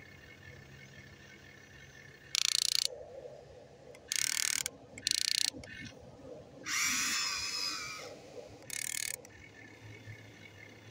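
Electric gearmotors of a Huina RC excavator whirring in short bursts as the arm and bucket move: five bursts, the longest near the middle with a wavering pitch.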